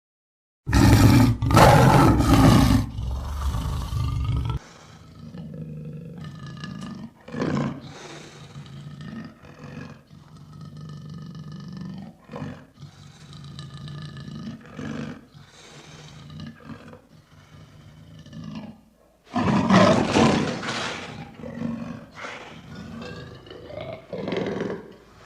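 A lion roaring: a loud roar starts about a second in and lasts some four seconds, followed by a run of quieter, lower calls, then a second loud roar near the end.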